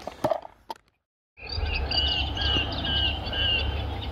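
A few light clicks, a brief dead silence about a second in, then a songbird singing a short phrase repeated about four times over a steady low rumble of wind on the microphone.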